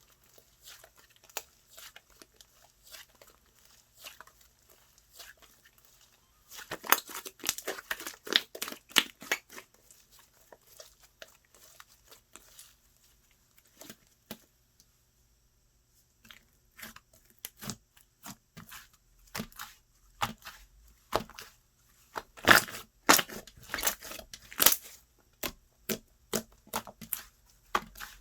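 Slime being squeezed, poked and stretched by hand, making many short sticky clicks and pops. They come in two louder spells, one about a quarter of the way in and one near the end.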